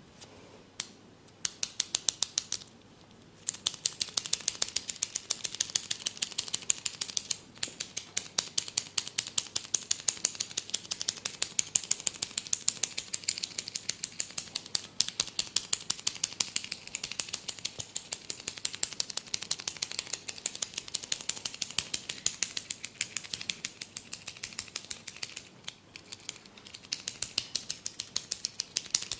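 Barber's fingers crackling through the hair, the 'hair cracking' of an Indian head massage: a fast, even run of crisp clicks, about five or six a second, with brief pauses a few times.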